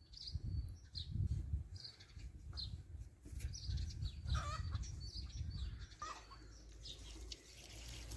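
Chickens clucking and small birds chirping now and then, over an uneven low rumbling noise.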